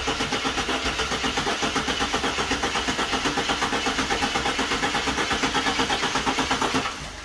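EL/EF Ford Falcon engine cranking over on its starter motor with a fast, even beat, then stopping near the end without running. The engine has not been started in about two and a half years.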